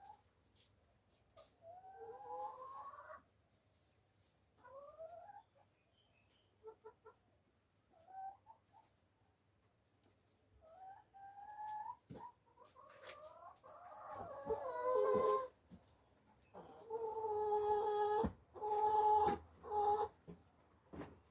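Backyard hens clucking and calling, a string of drawn-out, wavering calls that come more often and louder in the second half.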